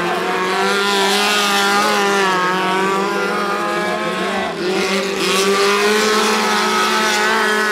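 Small speedway race cars' engines running hard, revving and easing off through the corners so their pitch rises and falls, with more than one engine heard at once. There is a brief dip about four and a half seconds in before they rev up again.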